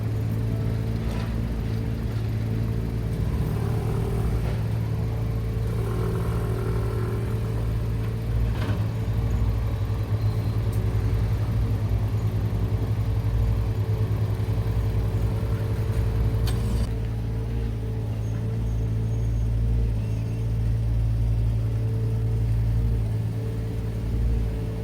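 Road traffic with a steady, constant-pitch engine hum, typical of a vehicle idling close by, while other cars pass.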